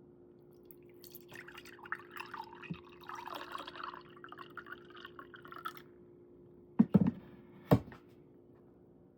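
Liquid pouring and splashing for about four and a half seconds, then two sharp knocks a little under a second apart, over a faint steady hum.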